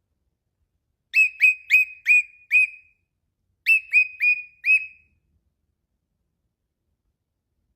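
Cockatiel whistling two quick runs of short, clear notes, each dropping in pitch at its end: five notes, a short pause, then four more.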